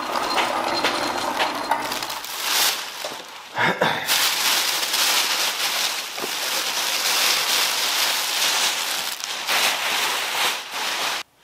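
Black plastic trash bags crinkling and rustling as they are pulled off an engine on an engine stand, with many small crackles. The sound stops abruptly near the end.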